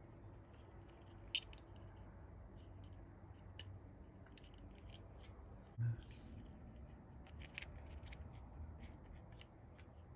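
Small plastic clicks and taps of hands working on a Shimano handlebar shifter, fitting its cable-window cover. There is a sharp click about a second and a half in and a louder short knock near six seconds.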